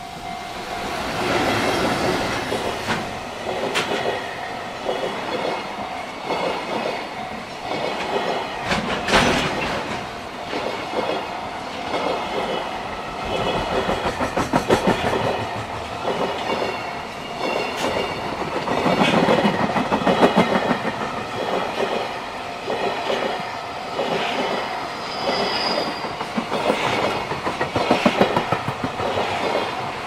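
Freight train of container wagons, hauled by a JR Freight EF210 electric locomotive, passing close by, its wheels clacking in a steady rhythm over the rail joints.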